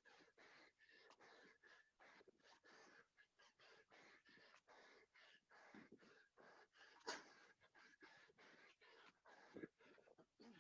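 Faint, rapid heavy breathing of someone out of breath from doing burpees, in quick puffs several times a second, with one louder puff about seven seconds in.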